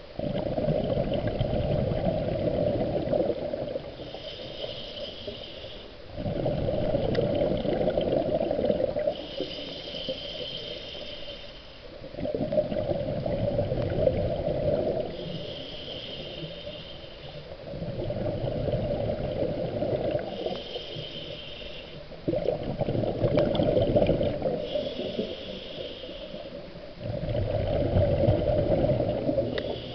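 Scuba diver breathing through a regulator underwater: a short hiss on each inhale, then a longer, louder rush of exhaled bubbles. About six breaths, roughly one every five seconds.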